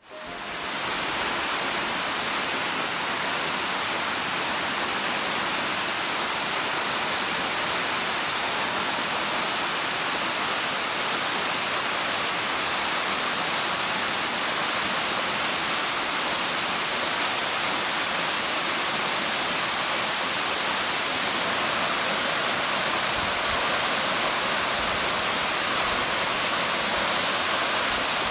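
Crabtree Falls waterfall: a steady, even rush of water cascading down the rock face into the plunge pool. It swells in within the first second and then holds unchanged.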